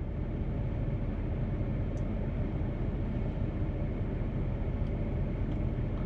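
Steady low rumbling background noise with no distinct events.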